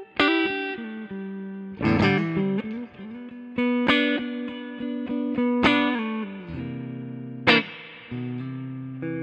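Epiphone Les Paul 100 electric guitar played amplified: a melodic lick of picked notes that ring out, several of them sliding in pitch, with sharp note attacks at about two, four, six and seven and a half seconds in.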